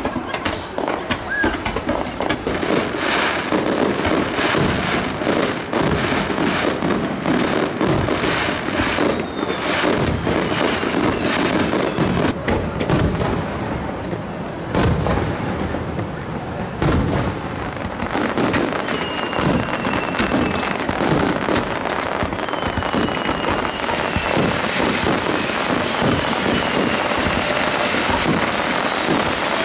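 Fireworks display: a dense, continuous crackle with many sharp bangs of shells bursting. From about twenty seconds in, several short falling whistles are heard.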